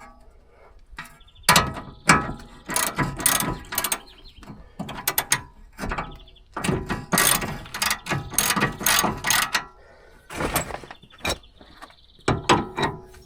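Hand ratchet being worked in irregular runs of rapid clicks, tightening a fitting on a car's steering during a track rod end replacement.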